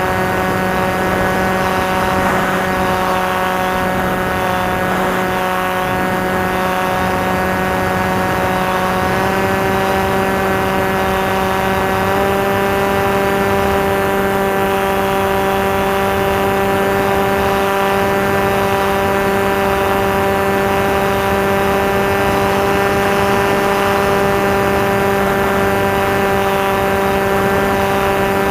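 Electric motor and propeller of a Maxi Swift RC plane running steadily in flight, a constant droning whine. Its pitch steps up slightly about nine seconds in and again about twelve seconds in, as the throttle is raised.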